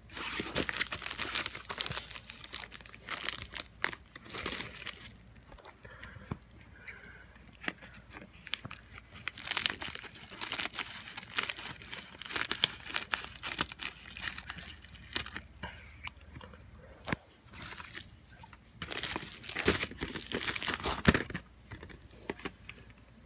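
A padded paper bubble mailer crinkling and rustling as it is handled and cut open with scissors, with sharp snips and crackles, in three spells of noise, the last the loudest.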